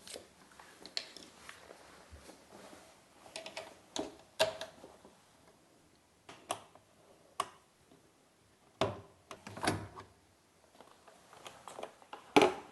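Scattered clicks, taps and a few louder knocks from hand tools and the washer dryer's door while the door is taken off the machine.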